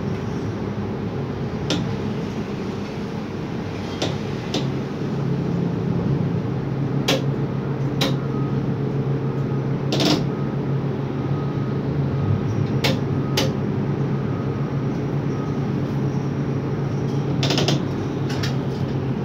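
Hot metal overhead crane heard from inside its operator's cabin: a steady mechanical hum that swells slightly after about five seconds, with about ten sharp clicks and knocks scattered through it.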